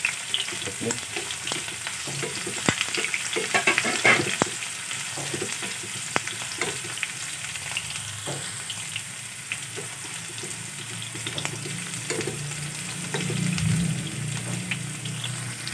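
Sliced onion and garlic sizzling in hot oil in a nonstick frying pan, with a steady hiss and many small crackling pops. A wooden spatula stirs and knocks against the pan, with several sharper clicks in the first few seconds.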